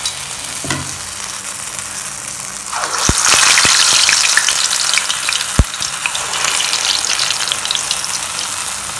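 Urad dal vadai deep-frying in hot oil in a steel kadai, a steady sizzle that swells about three seconds in as another patty of batter goes into the oil. A few light knocks come soon after, and one sharp knock a little past halfway.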